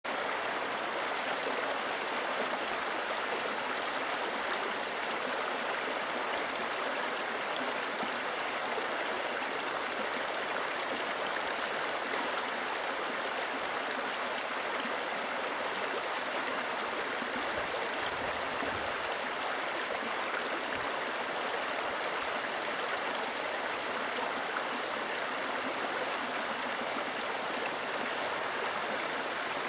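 A shallow, boulder-strewn river rushing and rippling over stones, a steady hiss of running water.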